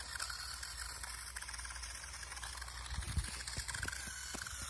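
Small toy RC truck's electric motor whirring as it drives over dirt and dry leaves, its pitch shifting near the end, with a few light crackles and knocks about three to four seconds in.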